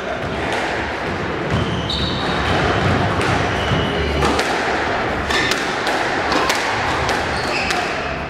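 A squash ball being struck: repeated sharp smacks off racket strings and court walls, mixed with short high squeaks of court shoes on the hardwood floor.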